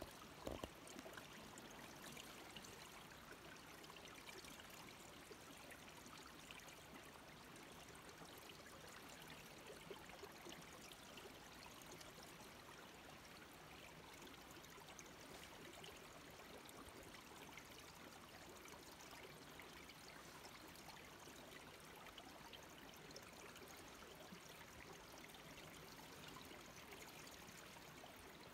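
Faint, steady trickle of meltwater running in a thin sheet over an iced-over road, with a brief knock just after the start.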